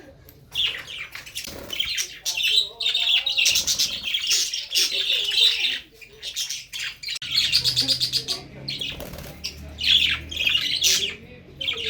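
Pet cockatiels and budgerigars chirping and squawking, a rapid run of short high calls and trills. A low rumble joins for a few seconds past the middle.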